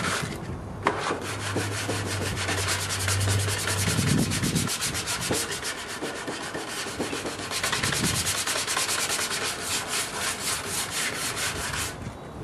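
Sandpaper rubbed by hand back and forth over a repaired rust spot on a painted steel range drawer front, in quick, even strokes, smoothing the repair before it is painted.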